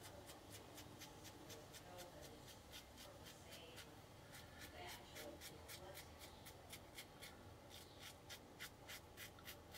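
A OneBlade Genesis single-edge safety razor with a Feather FHS10 blade scraping through lathered stubble in quick short strokes, about three or four a second. It is faint and scratchy. The blade is on its last shave and starting to tug.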